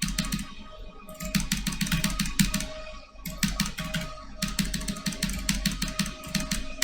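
Fast typing on a computer keyboard in bursts of rapid key clicks, with short pauses about a second in and about three seconds in.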